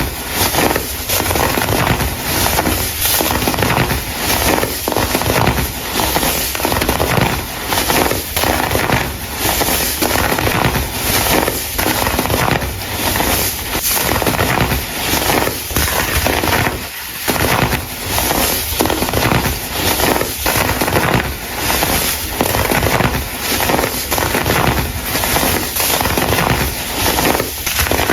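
Dried baking soda crumble being crushed, a dense, loud crunching crackle that keeps going with brief pauses, one clear break about two-thirds of the way through.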